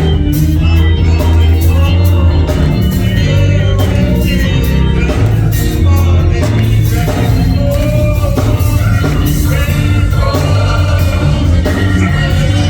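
Gospel music played by a church band with strong bass and a steady drum beat, with voices singing along.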